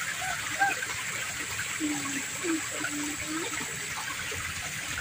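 Water trickling steadily over stones in a small irrigation channel, with quiet voices talking in the background.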